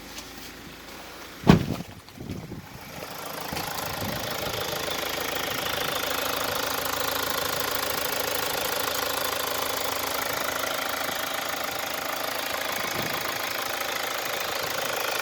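Idling 2.2-litre four-cylinder turbodiesel of a 2017 Mazda CX-5, heard up close, with the strange engine sound the owner is showing. A single loud thump about a second and a half in, then the engine grows louder and runs steady.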